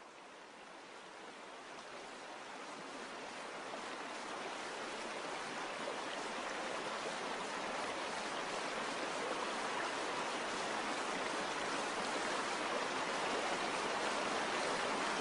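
Steady rush of running water, fading in slowly and growing louder throughout.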